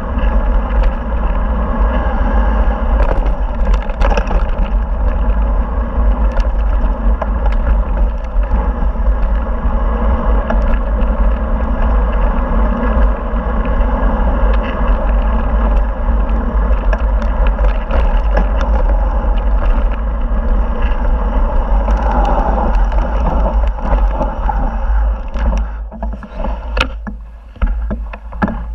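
Mountain bike rolling fast over a loose gravel trail: knobby tyres crunching on stones and the bike rattling over the bumps, with steady wind rumble on the camera microphone. The noise dies down over the last few seconds as the bike slows.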